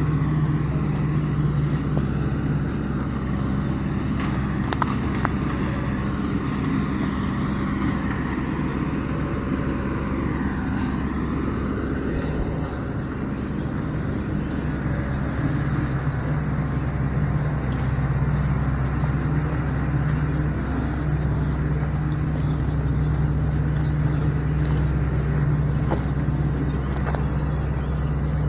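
Engine of a small vehicle running steadily while driving along, a low even hum.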